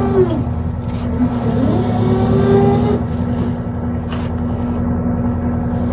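A boat engine running steadily, a constant low drone. Over it, in the first three seconds, come a few rising and falling whines, and a short click sounds about four seconds in.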